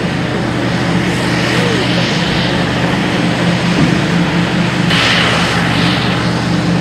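Large mining excavator's diesel engine running under load with a steady drone, with a rushing noise about five seconds in.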